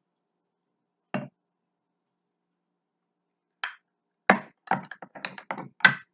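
Hand-held lemon squeezer and lemon halves being handled: one knock about a second in, then a quick run of knocks and clinks against the board and bowl over the last two seconds.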